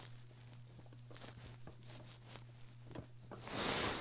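Light clicks and knocks of small makeup items being handled close to a phone's microphone, over a faint steady hum. Near the end comes a short, loud rushing hiss.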